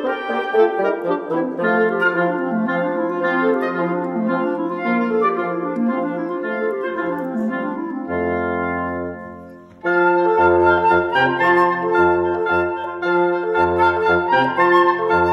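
Instrumental background music with a moving melody; it dies away about eight seconds in, then a new, louder section with a bass line starts abruptly about ten seconds in.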